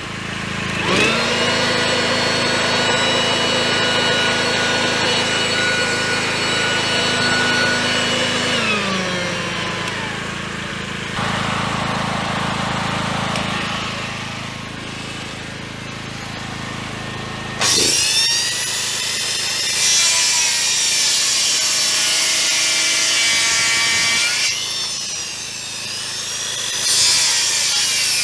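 A handheld electric power tool runs with a steady high motor whine for about seven seconds, then winds down, over the steady running of the Inforce GL 8000 petrol generator. About two-thirds of the way in, a corded circular saw starts up and cuts a wooden board, its pitch sagging under the cut, eases off briefly, then starts again near the end.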